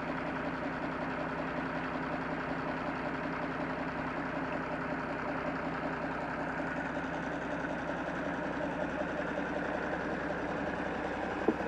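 John Deere 4630 tractor's six-cylinder turbo diesel idling steadily.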